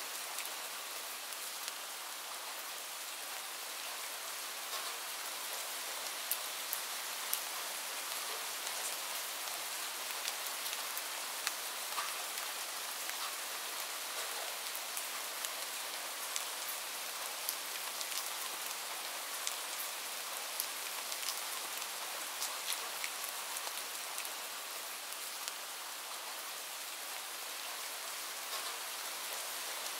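Steady rain falling into a puddle: an even hiss with many small, sharp drop splashes scattered irregularly through it.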